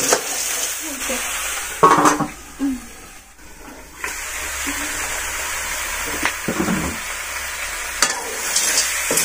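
Snails in their shells frying in a metal wok over a wood fire: a steady sizzle, with the shells clattering as they are stirred. There is a short louder sound about two seconds in, and the sizzle dies down for about a second and a half before returning.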